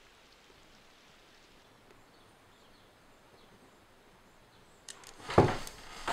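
Faint steady hiss of room tone, then a sudden loud sound about five seconds in, followed by a few softer ones.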